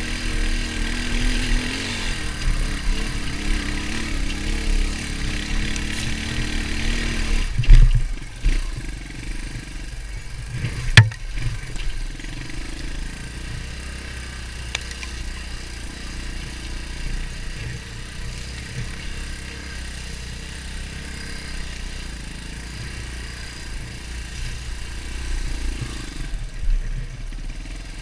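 Beta Alp 200's single-cylinder four-stroke engine running under throttle, then dropping to a quieter, steady running after about eight seconds. A heavy thump comes near the change and a sharp knock about three seconds later.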